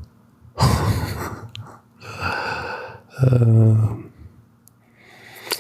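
A man breathing audibly between sentences: two long noisy breaths, then a short low voiced groan, and a quick intake of breath near the end.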